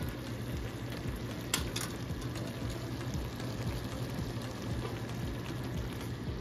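Taro leaves in coconut milk simmering in an open wok, a steady even bubbling with a faint low hum under it and two light clicks about a second and a half in. The laing is being cooked down until the coconut milk dries and turns oily.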